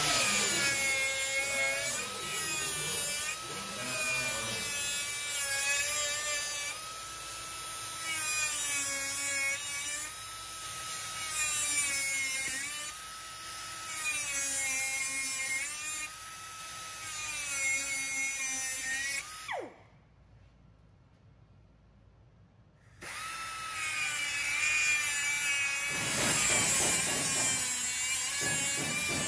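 Small cut-off tool with an abrasive wheel cutting metal mesh: a high whine that sags in pitch each time the wheel bites into the wires and picks up again between cuts. About two-thirds through it is switched off and winds down in falling pitch; after a short pause it starts again and goes on cutting.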